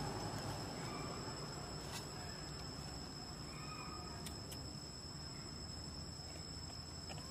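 Faint, steady high-pitched drone of insects, over a low background rumble. A few faint short chirps and clicks are scattered through it.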